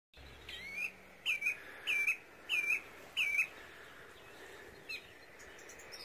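A songbird calling: a run of five alike whistled notes about two-thirds of a second apart, then one fainter note near the end.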